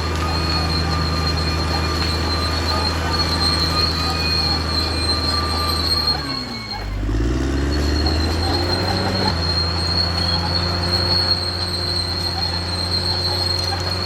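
Caterpillar D6R XL bulldozer working, its diesel engine running steadily under a steady high-pitched squeal from the steel tracks. About halfway through, the engine note drops briefly and climbs back up.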